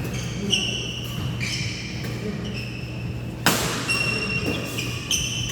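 Badminton play on an indoor court: shoes squeaking on the floor over and over, and a sharp racket strike on the shuttlecock about three and a half seconds in, over a steady low hum.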